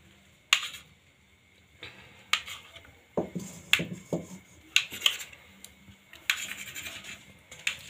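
Steel kitchen utensils clinking and clanking against steel pans and plates: irregular sharp knocks, several a second at times, a few with a short metallic ring.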